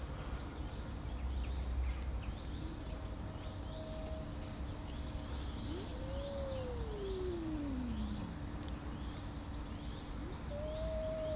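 Tortoiseshell cat's long, low threat yowls: one about six seconds in that rises, then slides down over about two seconds, and another starting near the end that is held, then falls. An angry warning to the other cats to keep away from the food. Birds chirp faintly throughout.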